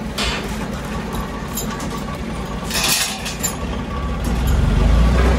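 A motor vehicle's engine rumbling low and steady, growing louder about four seconds in, with two brief hisses over it.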